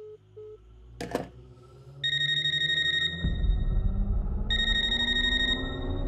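A telephone ringing in two trilling bursts, each about a second long, over a low rising drone that swells into a heavy rumble. A quick beeping phone-line tone fades out at the start, and a sharp hit comes about a second in.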